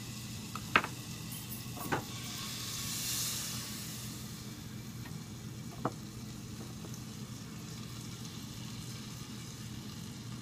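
French toast frying in a pan with a steady sizzle that swells louder about three seconds in, with a few light clinks of a whisk or utensil against a glass bowl.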